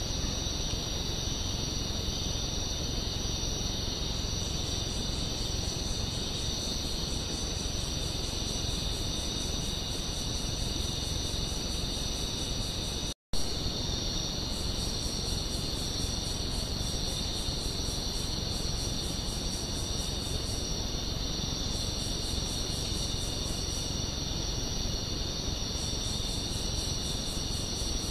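Insect chorus: a steady, high-pitched shrill of many insects, with a second, higher insect's fast pulsing trill that starts and stops in bouts, over the even hiss of the camera's microphone. The sound drops out completely for a fraction of a second about halfway through, where the recording cuts.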